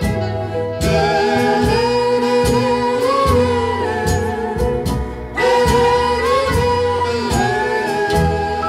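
Background music: a song with a gliding lead melody over bass and a steady beat.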